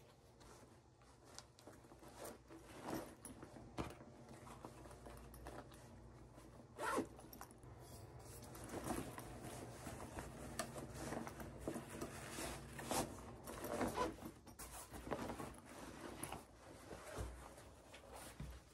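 Backpack being packed and zipped: rustling of the bag and things going into it, with zippers drawn several times in short rasps.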